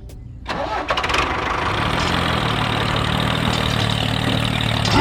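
A mini tractor's small engine starting about half a second in, then running steadily.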